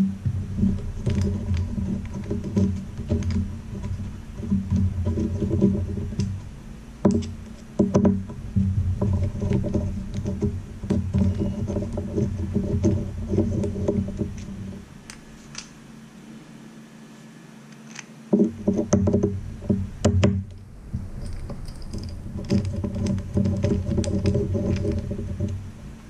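Hand screwdriver working screws out of a metal camera housing: scattered sharp clicks and taps of metal on metal. Under them runs a low, steady hum that drops out for a few seconds about two-thirds of the way through.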